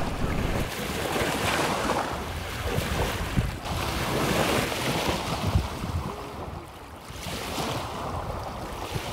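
Small waves washing onto a pebble shore, with wind rumbling on the microphone. The surf swells and eases, dipping about seven seconds in.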